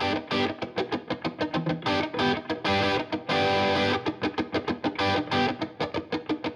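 Background music: a guitar picking a fast, even run of notes.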